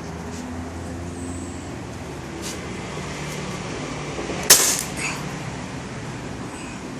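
A single sharp crack about four and a half seconds in, over a steady low hum.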